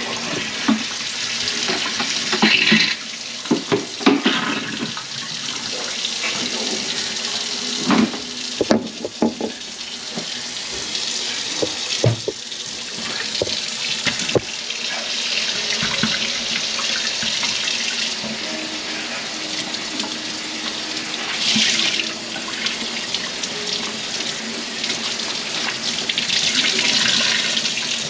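Water running from a kitchen faucet sprayer into a stainless sink and a plastic bucket, with hollow knocks and clunks of the bucket against the sink in the first half.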